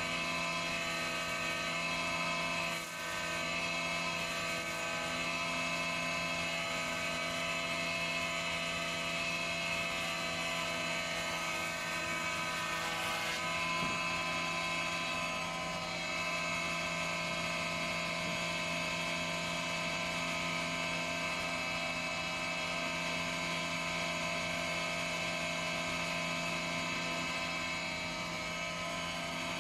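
Surface planer running steadily while a Sapele board is fed across its cutter block, a constant machine whine. A brighter hiss of the cut eases about halfway through, and the machine runs on.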